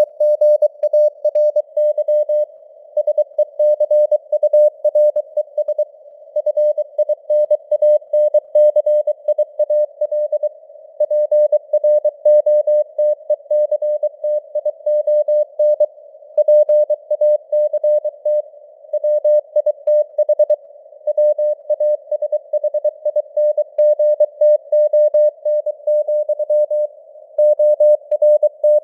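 Computer-generated Morse code (CW) at 23 words per minute: a single tone near 600 Hz keyed on and off in dots and dashes, with short pauses between words. It sits over a narrow band of simulated receiver hiss, as if heard through a CW radio's filter.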